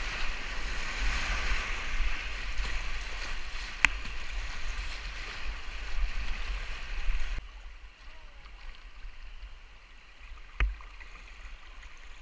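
Rushing whitewater of a flooded creek heard from a kayak running rapids, with paddle splashes and a low rumble. About seven seconds in the rush drops off sharply to a quieter current. Two short sharp knocks, one near four seconds in and one near eleven.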